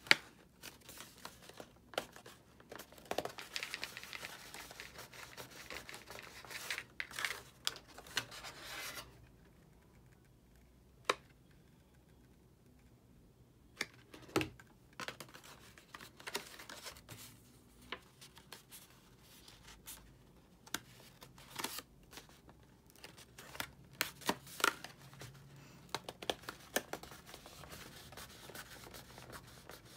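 Stiff 67 lb paper petals rustling and crinkling as they are handled and pressed together, with scattered sharp taps and clicks, the sharpest about halfway through. A quieter stretch of a few seconds comes about a third of the way in.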